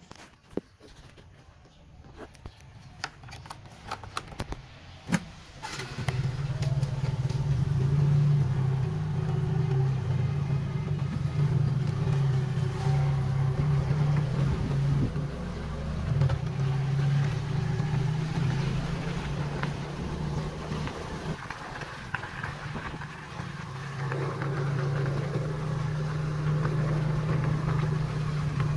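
Small motor scooter engine: a few clicks and knocks, then from about six seconds in the engine runs with a steady low hum as the scooter rides along a dirt track, easing off briefly and picking up again near the end.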